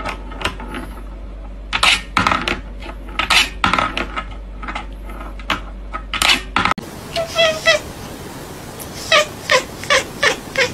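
A cat batting a small ball around a wooden and wire ball-track toy: irregular sharp rattling clicks of the ball against the track. About two-thirds of the way through, the sound changes to a cat giving a string of short, quick meows.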